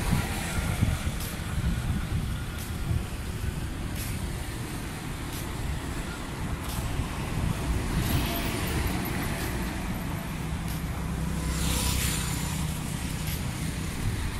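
Road traffic: a steady low rumble of engines with vehicles passing, swelling louder twice in the second half, once a little past halfway and again about twelve seconds in. Faint regular clicks come roughly every second and a half.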